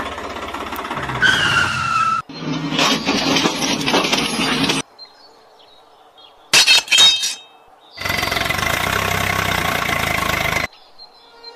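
Small electric motor of a homemade toy tractor running in short spells that cut off abruptly, with a falling whine in the first spell. A few sharp, loud clicks come about seven seconds in, from the trolley's hitch being fitted by hand.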